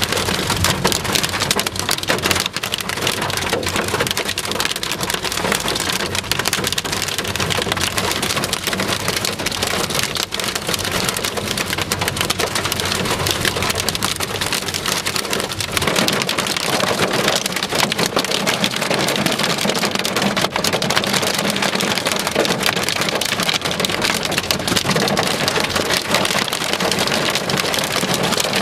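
Severe-storm downpour with hail pelting down: a loud, steady hiss of countless small impacts that does not let up.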